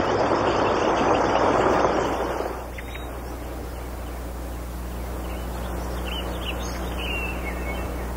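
A flock of birds' wings fluttering, dense and loud, dying away about two and a half seconds in. Then a low steady hum, with a few faint bird chirps near the end.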